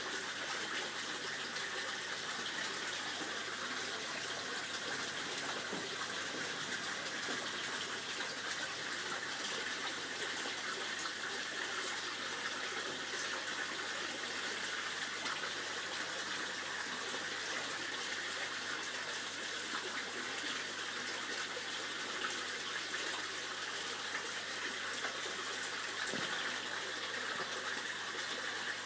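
Water from an inflow pipe splashing into a koi pond, a steady, unbroken rush of running water.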